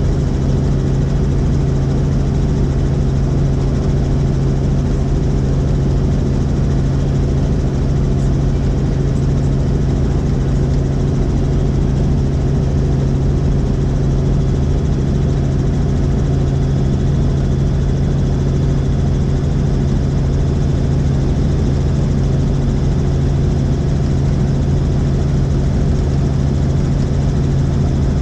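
Helicopter in flight: the steady drone of its rotor and engine, with a strong low hum and no change in pitch or level.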